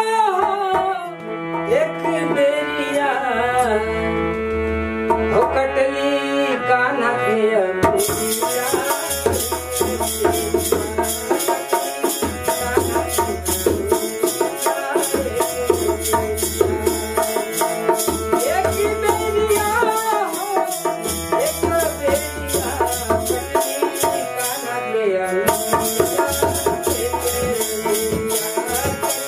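Bhajan accompaniment: a harmonium plays a melody over dholak drum strokes. From about eight seconds in, a pair of kartal clappers keeps up a fast, even clicking.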